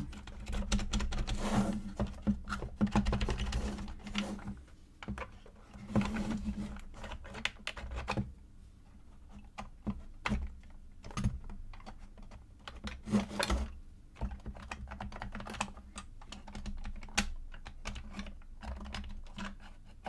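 Wooden parts of an Esc Welt Space Box, a laser-cut plywood puzzle box, clicking, tapping and scraping as they are handled, with pins and sliders being pulled and pushed: a run of light, irregular clicks and knocks.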